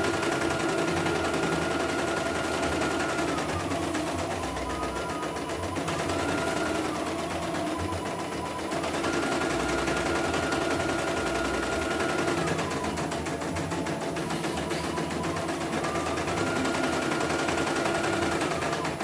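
CNY E900 portable computerised embroidery machine stitching a design: a rapid, steady needle clatter, with a whine that rises, holds and falls back several times.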